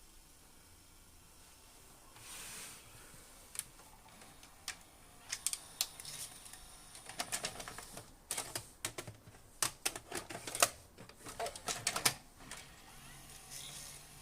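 Panasonic HD100 VCR's tape-loading mechanism clicking and clunking irregularly on a test run, the clicks sparse at first and then coming thick and fast near the middle and end; no drum squeal is heard, the head-drum noise having been cured by cleaning and re-greasing.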